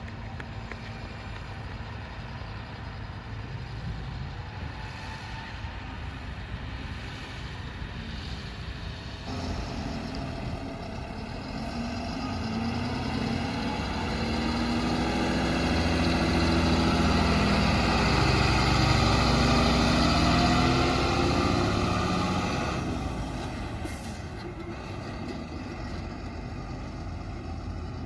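Heavy diesel engine of a truck or backhoe running, swelling from about a third of the way in to a loud stretch of several seconds, then easing back down.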